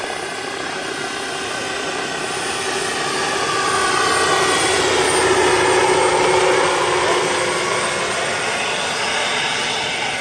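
Turbine-powered radio-controlled Mi-24 Hind scale helicopter flying by: a steady turbine whine with rotor noise that grows louder to a peak a little past the middle, then eases off.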